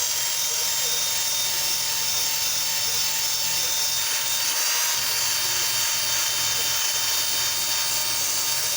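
Electric drill running at steady full speed with a wheel attachment grinding against a cast iron kettle to strip rust: a steady motor whine over a dense, high hissing grind.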